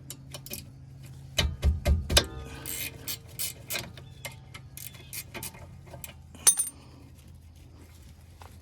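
Metal hand tools clicking and clinking on a car's rear brake caliper, a ratchet wrench ticking as the caliper bolts are undone. The heaviest knocks come about one and a half to two seconds in, with one sharp clank about six and a half seconds in.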